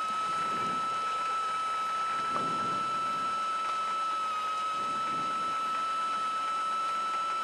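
Light aircraft taxiing with steady engine and propeller noise in the cockpit, with a constant high-pitched whine over it.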